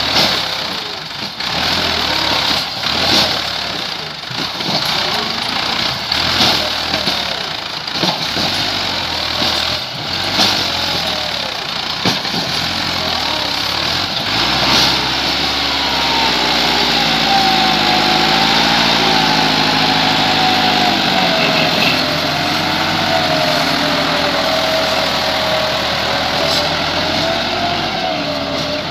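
Massey Ferguson tractor diesel engines straining under a heavy load, pulling and pushing a trolley heaped with soil. For the first half the running is broken by irregular sharp knocks. From about halfway a steady engine drone takes over, its pitch wavering up and down as the engine labours.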